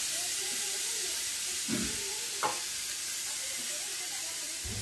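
Pressure cooker letting out its remaining steam in a steady hiss as the pressure is released before opening, with a couple of light metal knocks about two seconds in.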